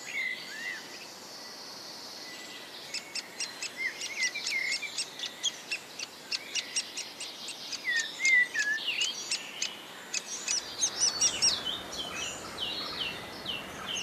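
Great spotted woodpecker chick calling from its nest hole: a rapid run of short, high calls that starts about three seconds in and grows more frequent towards the end, mixed with lower sliding chirps.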